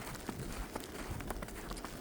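Footsteps crunching in fresh snow during a snowfall, a quick run of short crisp crunches over a steady low rumble.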